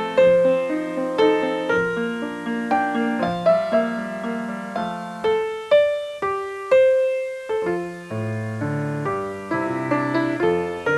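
Piano music: a melody of struck notes that each fade away, with lower bass notes coming in about eight seconds in.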